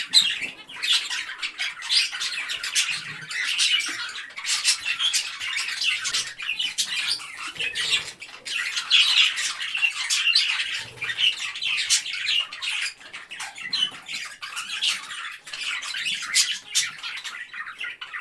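Parrots squawking harshly and chattering in quick, overlapping calls without a break.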